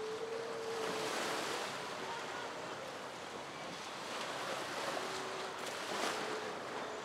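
Rushing water and spray from a foiling racing catamaran moving at speed close by, mixed with wind buffeting the microphone. A faint steady tone sounds in the first second and again briefly around five seconds in.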